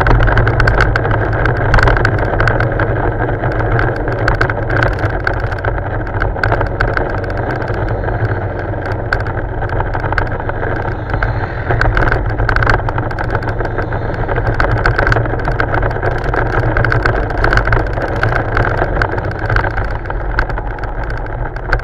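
Motorcycle running at road speed with wind noise, heard from a camera mounted on its rear bag. Frequent short knocks and rattles come from the camera shaking on its mount.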